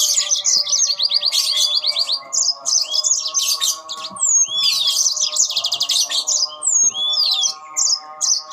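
Yellow-fronted canaries singing back and forth, a dense run of fast trills and quick slurred whistles. A steady hum of several low tones runs underneath.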